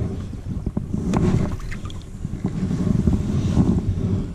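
Wind buffeting the microphone in uneven gusts, with a few light clicks and taps from hands handling a spinning reel and rod.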